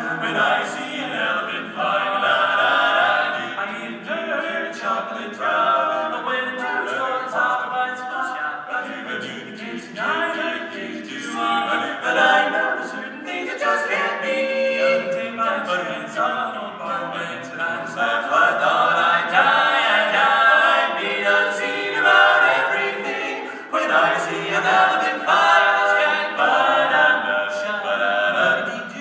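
Male barbershop quartet singing a cappella in four-part close harmony.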